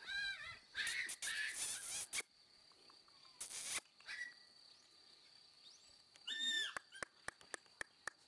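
Short, high, arching animal calls, one right at the start and another about six and a half seconds in, with bursts of rustling noise between them and a string of sharp clicks near the end.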